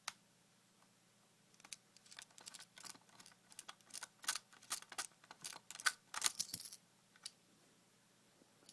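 A run of sharp clicks and rattles as the bipod is taken off the W700 airsoft sniper rifle, with small parts knocking and snapping. The clicks are thickest in the middle and stop about a second before the end.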